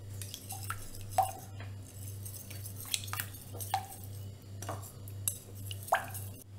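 Spoon stirring sour curd and water in a glass bowl, clinking irregularly against the glass with a wet, squelching slosh.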